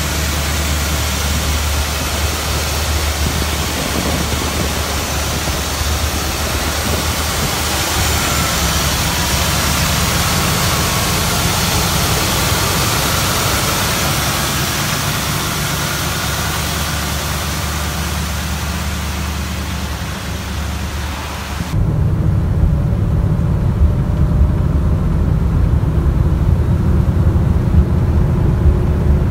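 1969 Chevrolet Camaro SS's 396 big-block V8 idling with the hood up, under a steady hiss. About three-quarters of the way through it cuts to the car driving, heard from inside the cabin: a lower, duller engine sound with the hiss gone.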